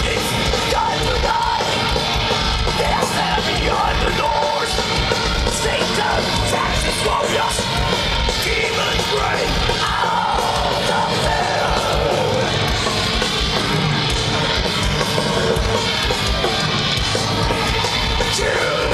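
Thrash metal band playing live through a festival PA: distorted electric guitar and bass over fast drumming, kicking in abruptly at the start of the song.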